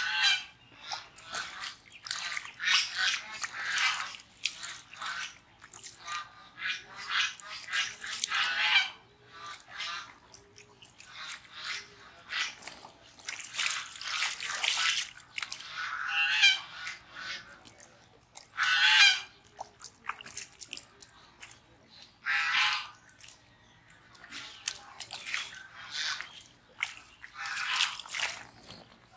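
Wet squelching and slapping of live catfish writhing on soft mud as they are grabbed by hand, in irregular bursts; near the end a fish is tossed into a plastic basin.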